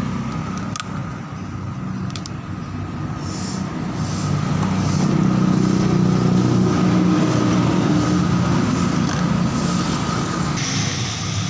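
A motor vehicle engine running steadily, growing louder about four seconds in, with a couple of sharp clicks near the start.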